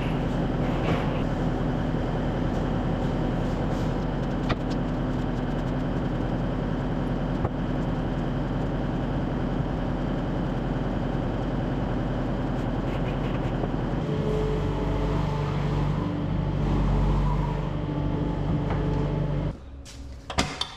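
Skid steer's diesel engine running steadily, its note changing about two-thirds of the way through, then shut off abruptly near the end, followed by a few clicks.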